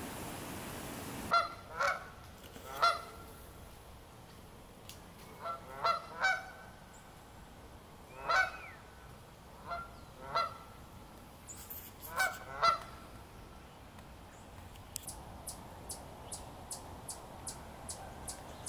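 Canada geese honking: about a dozen calls, singly and in quick pairs, starting about a second in and stopping after about 13 seconds.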